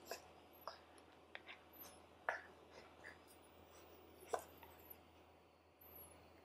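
Faint mouthing and licking sounds of a golden retriever puppy nibbling at an adult dog's face, a scatter of small wet clicks with two sharper ones about two and four seconds in, with soft rubbing of fur on a blanket.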